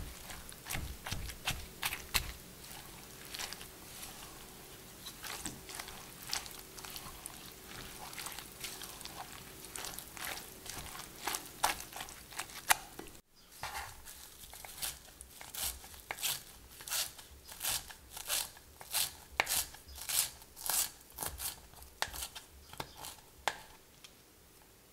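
A silicone spatula stirring grated zucchini, potato, shallot and cheese in a glass bowl, with irregular scraping and clicking against the glass. About halfway through, this gives way to a kitchen knife chopping parsley on a bamboo cutting board, a steady series of knocks about two a second.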